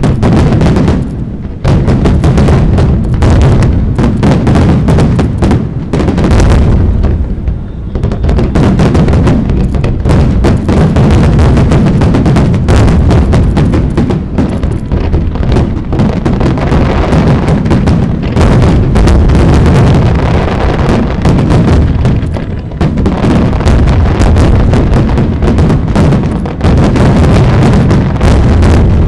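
A dense barrage of fireworks shells bursting in rapid succession, the bangs running almost together into one continuous crackling rumble, with a short lull about seven seconds in.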